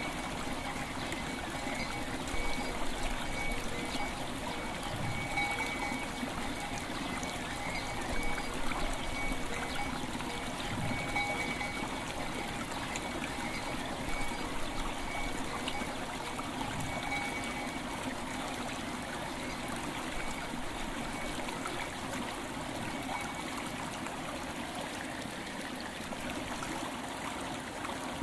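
River water flowing and trickling steadily, with soft bell tones ringing over it and swelling again every few seconds.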